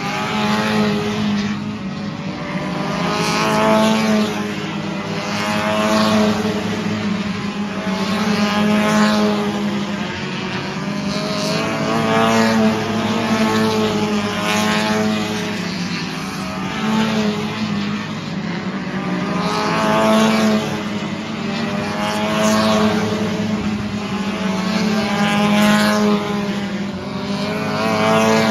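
V6 stock cars racing on an oval track, their engines swelling and fading as the cars come past one after another every two to three seconds, each note bending in pitch as it goes by, over a constant drone from the rest of the field.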